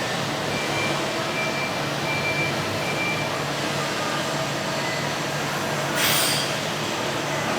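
Machining cell with a transfer robot running steadily with a hum. A high beep sounds about four times at roughly one-second intervals near the start. About six seconds in comes a short, loud hiss like a release of compressed air.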